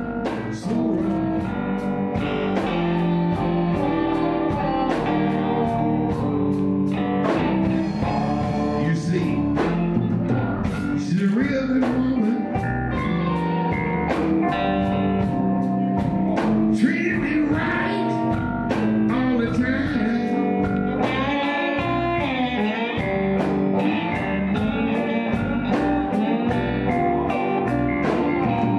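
Live electric blues band playing: electric guitars over a steady drum beat.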